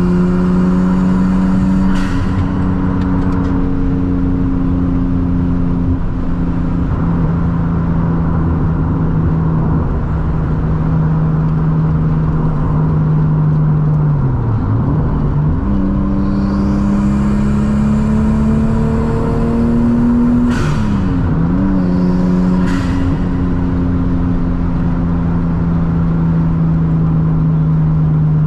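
Turbocharged RB25 straight-six engine of a Nissan Cefiro pulling on the road, heard from inside the cabin, its pitch rising and falling with the throttle and dipping sharply twice, about halfway through and about two-thirds of the way through. Short bursts of hiss cut in about two seconds in and twice more later on.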